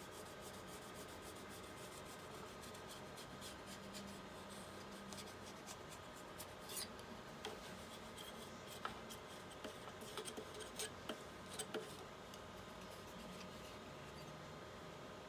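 Faint rubbing and light scraping as a plastic screen protector film is smoothed down over a touchscreen to push out air bubbles. A scatter of small clicks and crackles comes about halfway through, over a faint steady hum.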